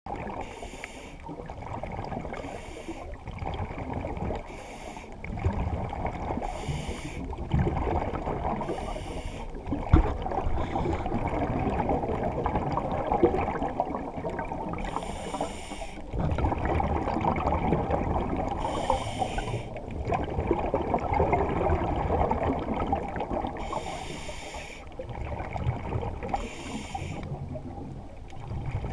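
Scuba diver breathing underwater through a regulator: short hissy breaths every couple of seconds, then more irregularly, over a continuous rushing gurgle of exhaled bubbles and water. One sharp knock about 10 seconds in.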